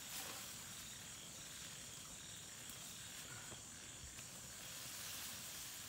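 Faint, steady high-pitched chirring of night insects, with a couple of small clicks about halfway through.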